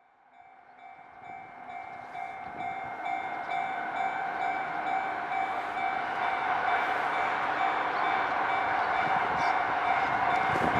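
A train approaching on the line, rising out of silence and growing steadily louder. A steady high-pitched tone sits over the rising rumble of the train.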